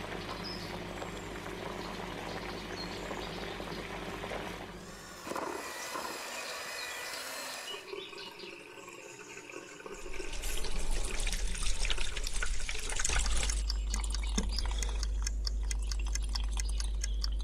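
Opening title sound design of a TV cooking show: water-like pouring and dripping effects, then from about ten seconds in a deep bass with quick clicks over it, cutting off suddenly at the end.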